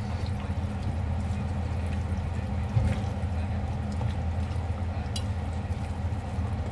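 Wet squelching of a hand mixing marinated chicken pieces and wood ear mushrooms in a stainless steel bowl, with a few light clicks against the bowl, over a steady low hum.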